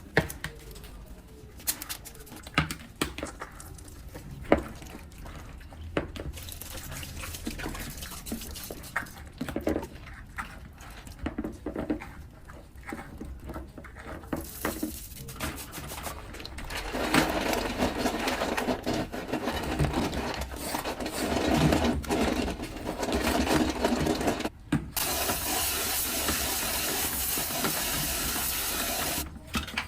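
Clicks and knocks of objects being handled. From about halfway there is a steady rush of running water, which stops for a moment, starts again and then cuts off abruptly near the end.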